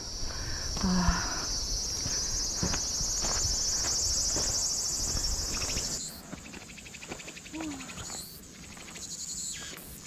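Insects chirring in a steady, finely pulsing high buzz that drops away about six seconds in, leaving fainter, higher insect calls.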